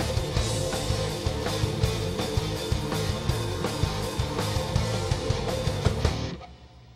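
Groove metal band playing an instrumental passage live on electric guitar, bass and drums, stopping abruptly about six seconds in at the end of the song, leaving a faint low hum.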